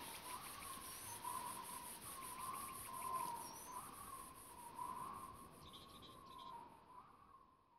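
Insects chirping in a rapid, even, high-pitched pulse, with two brief bird chirps and a faint wavering tone underneath; it fades out near the end.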